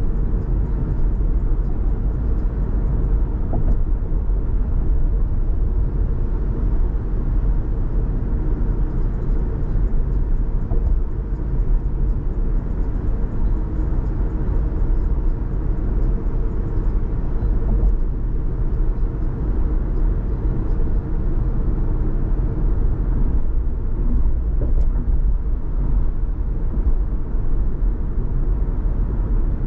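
A car being driven: a steady low rumble of road, tyre and engine noise.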